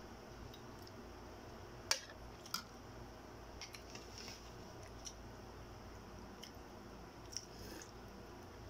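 Scattered light clicks and taps as a metal spoon and balut eggs are handled in plastic bowls at a meal table, the sharpest click about two seconds in and a second soon after, then smaller ticks.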